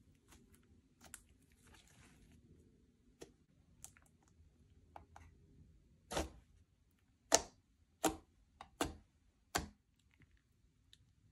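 Slime worked by hand: faint sticky crackles, then five loud pops of trapped air, most of a second apart, starting a little past halfway.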